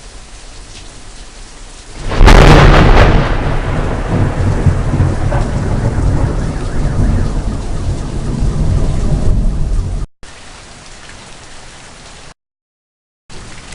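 Steady heavy rain, then about two seconds in a very close thunderclap: a sharp crack followed by a loud, low rumble that rolls on for about eight seconds before cutting off abruptly. Rain continues after it, and the sound drops out briefly near the end.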